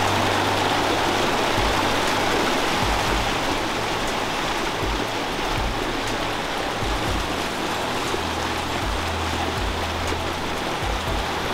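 Fast mountain stream rushing over rocks in white water, a steady, loud, even wash of water noise.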